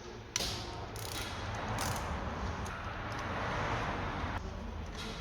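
Metal parts of a disassembled car starter motor being handled on a workbench: mechanical clicking and rattling that starts suddenly about half a second in, over a steady hiss.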